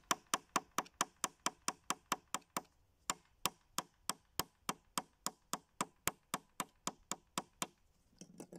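Small plastic hammer from a fossil-excavation kit tapping on plastic mammoth-skeleton pieces in a quick, steady rhythm of about three to four light knocks a second, stopping about a second before the end.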